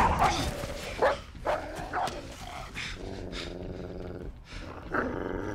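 Wolf snarling and growling during a fight with a man, with sharp scuffling bursts in the first two seconds and rougher growls about three seconds in and again near the end.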